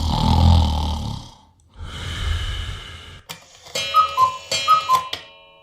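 A person snoring twice in slow breaths, then a clock-like sound effect near the end: clicks and a two-note descending chime rung twice.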